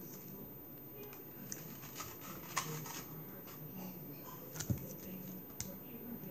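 Sticky slime being squeezed and pulled apart by fingers, giving scattered soft clicks and pops, the loudest about two and a half and four and a half seconds in.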